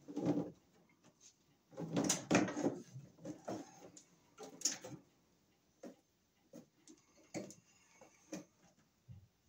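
Sheathed electrical cable being pulled and fed into a metal breaker panel: the cable rustles and scrapes against the enclosure, with scattered clicks and knocks, busiest around two to three seconds in.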